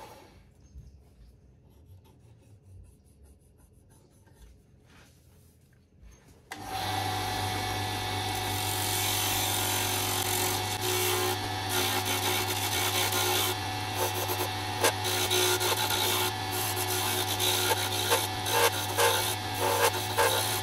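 Almost silent for about six seconds, then, abruptly, a wood lathe running while a turning chisel cuts a spinning maple and epoxy-resin pen blank. A steady motor hum sits under the scraping of the cut, which turns choppy and chattery over the second half.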